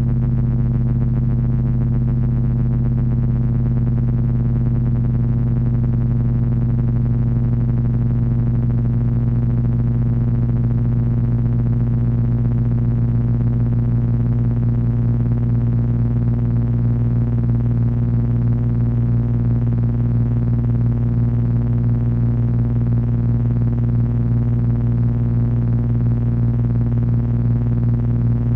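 Electronic drone from three Frequency Analyzer v1 units driven by an HP 200C audio oscillator: a loud, unbroken low hum with many stacked overtones that holds steady throughout.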